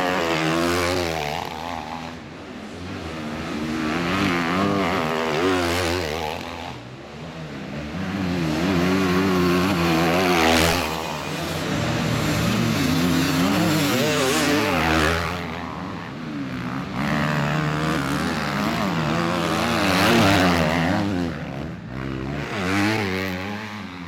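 Motocross motorcycle engines revving up and down over and over, the pitch climbing and falling as the bikes are ridden hard, with the loudness rising and dropping every few seconds.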